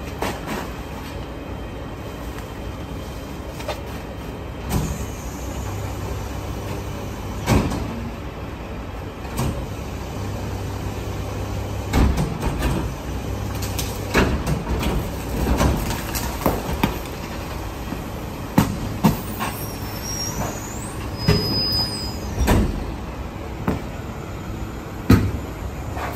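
Rear-loading garbage truck running, its engine holding a steady low hum, while trash bags are thrown into the hopper and the packer compacts them, giving repeated thumps and clunks throughout. A brief high squeal comes a little past the middle.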